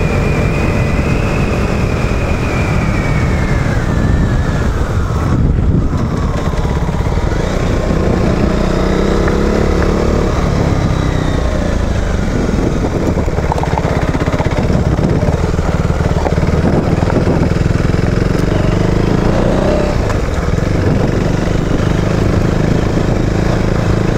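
KTM Duke 390's single-cylinder engine running under way, its note falling a few seconds in and then rising and falling again with the throttle, over heavy wind noise on the helmet microphone.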